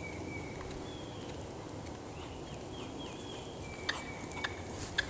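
Birds calling in the surrounding woods: thin held whistles, then a quick run of short falling chirps about halfway through. A few sharp clicks come near the end.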